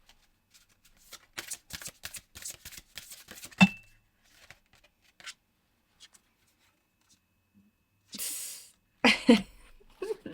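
A deck of divination cards being shuffled by hand: a quick run of card-edge clicks and flicks, ending with a sharp tap about three and a half seconds in. A few faint card sounds follow, then a short rustle and a louder burst near the end.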